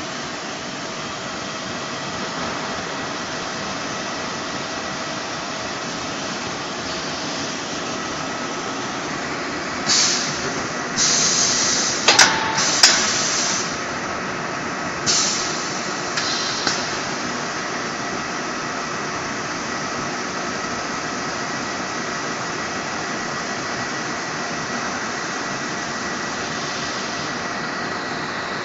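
Automatic welding machine on a transformer corrugated-fin line running, with a steady noisy hiss. Between about ten and seventeen seconds in come several short, louder bursts of hiss, and two sharp clicks fall near the middle of them.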